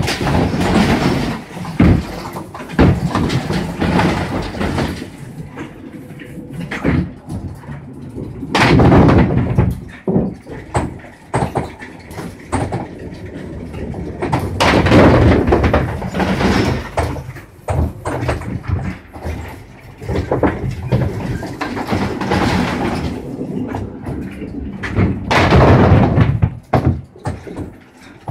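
Nine-pin bowling pins and string pinsetter: balls rumbling into the pins, pins clattering down, and the machine knocking and rattling as it hauls the pins back up on their cords. The clatter comes in several loud surges a few seconds apart, with sharp knocks between.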